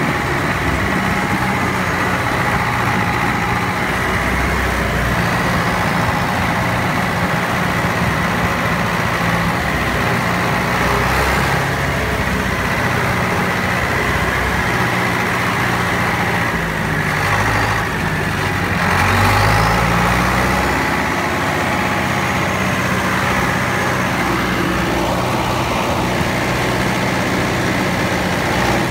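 David Brown 1412 tractor's diesel engine running as the tractor is driven, with a steady high whine over it. The engine speed shifts and rises about two-thirds of the way through, getting briefly louder, then settles back.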